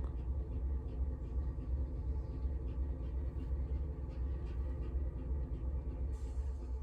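Steady low background hum, with faint light ticks scattered through it.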